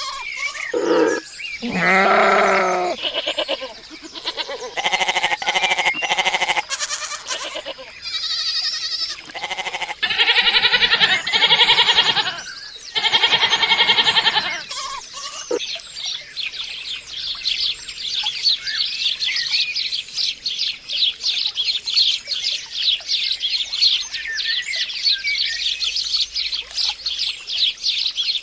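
Farm animals bleating in a run of long, wavering, loud calls over roughly the first fifteen seconds, then birds chirping rapidly and continuously for the rest.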